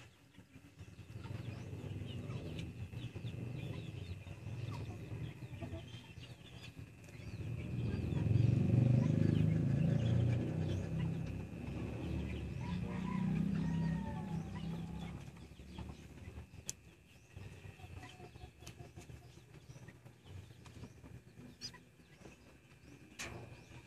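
Chick peeping faintly as it hatches out of its shell in an egg incubator, over a steady thin high whine. A louder low rumbling noise swells in the middle and fades out again.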